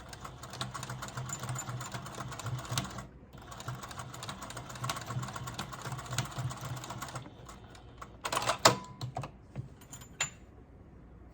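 Sewing machine running, stitching across a collar strap in two runs with a brief stop about three seconds in. The machine stops about seven seconds in, and a few sharp clicks and clunks follow.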